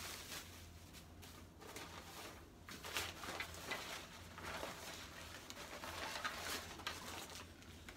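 Rustling and handling of plastic packaging as boxed items are rummaged through, in irregular scrapes and crinkles over a low steady hum.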